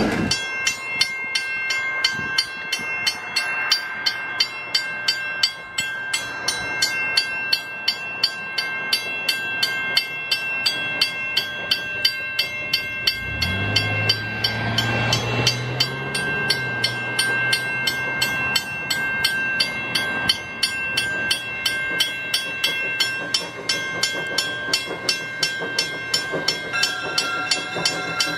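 Viscose Company 0-4-0 steam locomotive No. 6 approaching with a steady, evenly repeating beat. A low whistle rises and is held for about three seconds, about halfway through.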